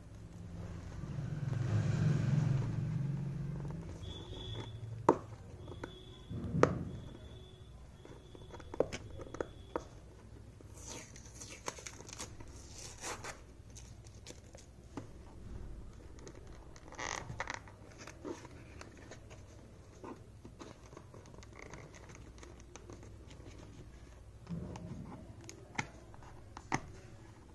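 Cardboard shipping box and its packaging being handled and opened by hand: scattered taps, knocks and scrapes, with a few seconds of tearing and crinkling near the middle. Near the start a low rumble swells up and fades over a few seconds.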